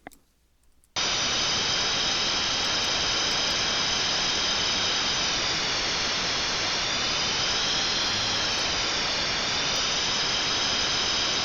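Loud, steady FM radio static from the SDRPlay RSP1 receiver tuned to an FRS channel, starting abruptly about a second in. A few faint wavering tones drift through the hiss. It is the noise of a very weak signal, with any voice buried in it.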